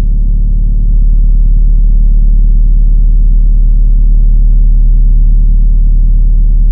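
A loud, steady, deep rumbling drone with a rapid fluttering texture and nothing in the higher range.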